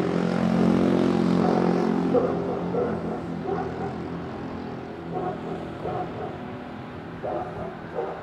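Steady drone of an engine, loudest at first and fading away after about three seconds.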